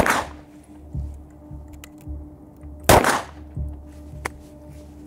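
Mud-caked Sig Sauer M18 9mm pistol firing: one shot right at the start and another about three seconds in, each ringing out with a short echo, as the dirty pistol keeps cycling. Background music with a low beat plays underneath.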